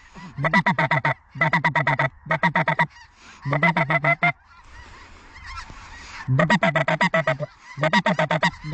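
Geese honking in six loud bursts of rapid, short, pitched notes, with a quieter, hazier stretch of calling in the middle.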